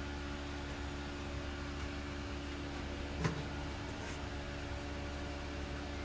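Steady low mechanical hum of room tone, with one faint knock a little over three seconds in.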